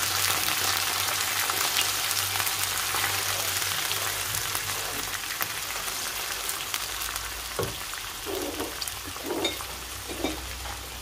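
Tomato purée, pine nuts and chopped vegetables sizzling in hot olive oil in a non-stick frying pan while being stirred with a wooden spoon. The sizzle eases off gradually in the second half.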